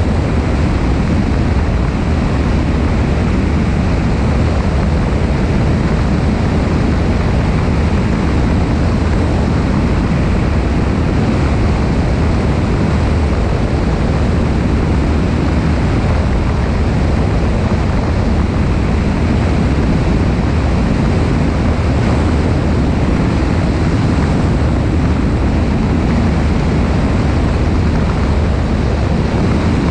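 Steady rush of airflow over a wing-mounted camera's microphone, with the low drone of the Cessna 172's engine and propeller underneath, unchanging throughout.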